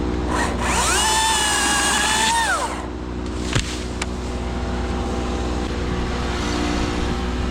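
Chainsaw idling, revved up to a high whine for about two seconds near the start, then dropped back to idle. A sharp click follows.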